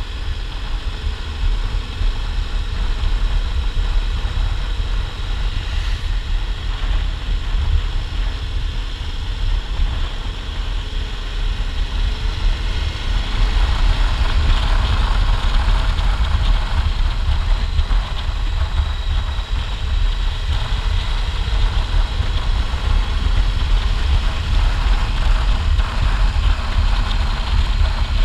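Motorcycle riding along a paved road: its engine running under a heavy, steady rumble of wind on the microphone. It gets somewhat louder from about halfway through.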